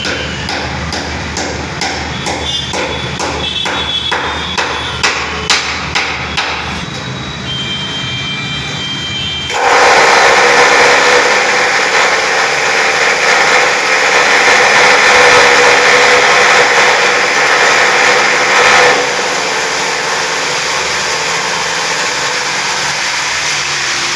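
A run of sharp hammer taps on wood, a couple a second, growing louder for a few seconds. Then, about ten seconds in, a handheld electric drill starts up against the plywood shelving and runs loudly. It drops to a lower, steady running sound for the last few seconds.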